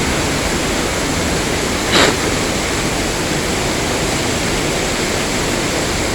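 Waterfall's falling water rushing steadily, with one brief louder sound about two seconds in.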